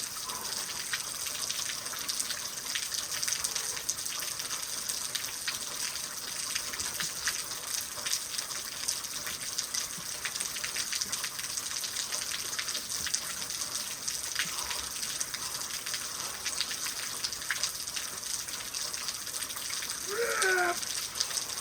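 Steady rain falling, a dense hiss of drops pattering on surfaces close to the microphone. A short strained vocal sound from the lifter comes near the end.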